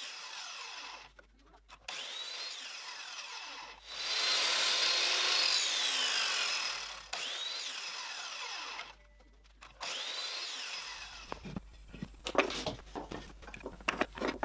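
Ryobi sliding compound miter saw run about five times in short bursts to cut small wooden spacers from a scrap strip. Each time its motor whine rises as it spins up, the blade cuts through the wood, and the whine falls as it winds down; the longest and loudest cut comes about four seconds in. Near the end there are light wooden clicks as the small cut pieces are handled and set down.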